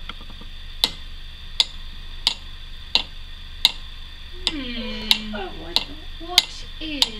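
Steady, evenly spaced ticking, about one sharp tick every 0.7 seconds, with a short stretch of a voice about halfway through.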